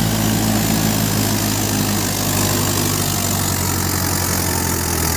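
Mahindra 585 DI tractor's diesel engine running steadily.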